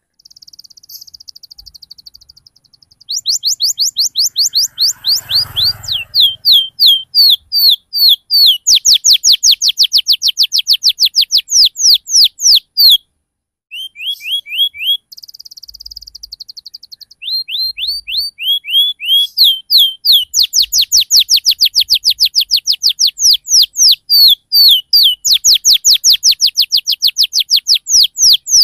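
Domestic canary singing a rolling song: long runs of rapid chirps repeated about five a second, each sweeping quickly downward, broken by buzzy trilled passages near the start and about halfway through, and a short pause about 13 seconds in. A faint rustle comes about five seconds in.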